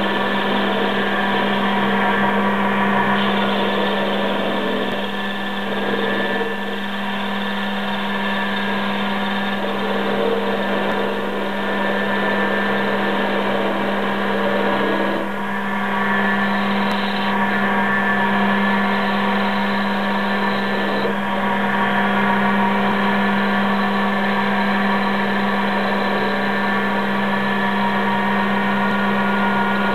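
Quantum D 210 x 400 Vario benchtop lathe, converted to CNC with servo motors, running steadily: a continuous mechanical whine over a strong hum, shifting slightly in level a few times as it works.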